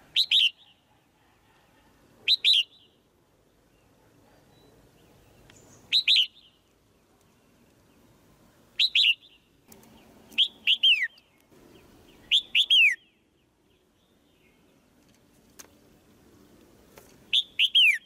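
Red-whiskered bulbul giving short, sharp chirping calls, each a quick group of two or three downward-sliding notes, repeated every few seconds, sometimes in quick succession. The title gives them as a female's chirps used to stir a male into singing harder.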